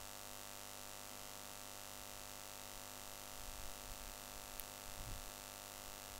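Steady hiss and electrical mains hum from the recording microphone, with a few faint low bumps about halfway through.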